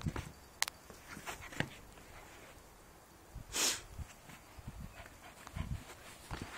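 Border collie puppy playing with a ball on grass: scattered light knocks and scuffs, with one short, loud, breathy sound about three and a half seconds in.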